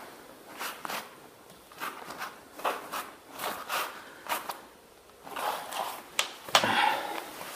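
Work gloves and a heated PVC pipe rustling and scraping against a concrete floor as the pipe is pressed flat and shifted, with scattered light clicks. The handling noise grows louder about five seconds in as the pipe is lifted and moved.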